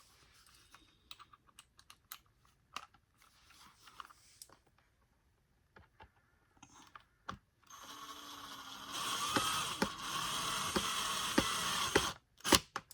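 Light clicks and taps of small plastic vacuum parts and a screw being handled. About eight seconds in, a louder steady scratchy scraping starts and runs for about four seconds, with clicks in it, then stops.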